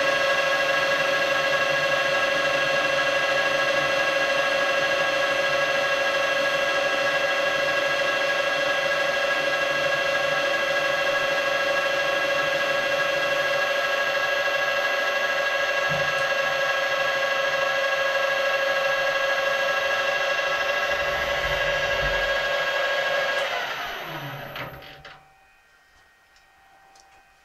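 Metal lathe running steadily with a whine of several fixed tones. About 23 seconds in it is switched off and the whine falls in pitch as the chuck spins down to a stop.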